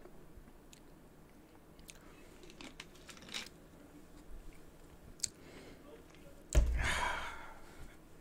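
Faint clicks and mouth noises close to a microphone, then about six and a half seconds in a sudden loud breathy exhale into the microphone that fades away over about a second.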